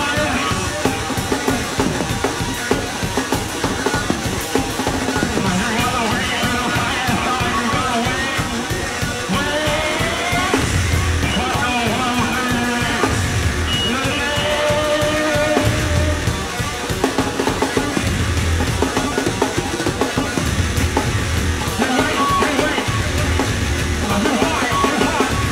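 Live noise rock from an electric bass and drum kit duo: fast, dense drumming on drums and cymbals throughout, with loud low bass notes pulsing about every one and a half seconds from about ten seconds in.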